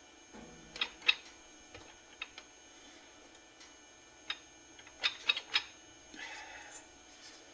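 Sharp metallic clicks and taps of transmission parts being handled while a snap ring is worked toward its groove in a clutch drum, with a cluster of clicks past the middle and a short scrape after it.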